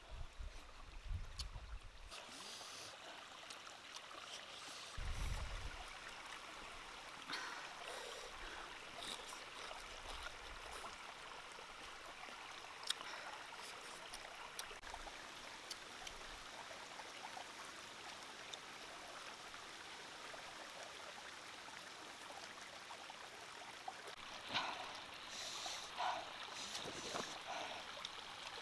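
Steady rush of flowing stream water, with a few soft thumps and faint clicks over it.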